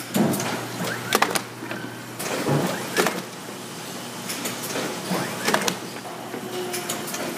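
Vinyl record pressing machinery running: a steady low hum with a scatter of sharp clanks and knocks.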